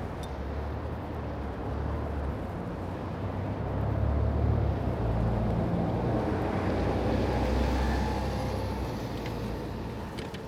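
City street traffic noise with low wind rumble on the microphone. It swells in the middle as a vehicle goes by, then eases off.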